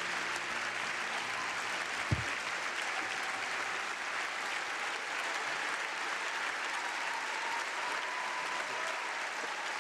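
Large audience applauding steadily, with one brief low thump about two seconds in.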